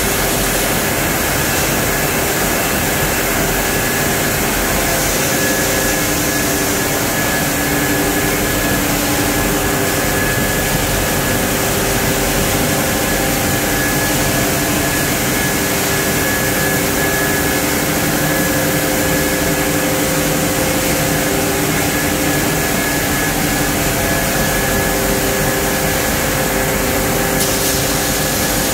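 Pellet production line running steadily: a constant machinery drone from its motors and fans, with several steady hums and a high whine on top.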